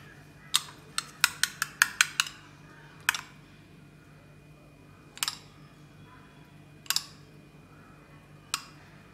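Metal spoon clinking against a ceramic bowl of beaten egg: a quick run of about eight clinks in the first two seconds, then single clinks every second or two as egg is spooned out.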